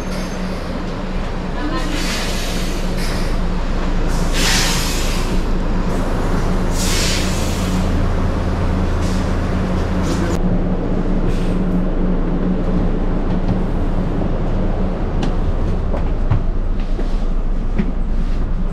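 Express coach buses' diesel engines idling at a terminal platform: a steady low drone, with three loud hisses in the first eight seconds. About ten seconds in the sound turns duller and steadier, heard inside a coach's cabin with the engine running.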